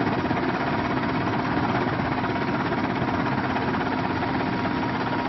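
Helicopter in flight, heard from on board: a steady engine drone with a rapid rotor flutter underneath.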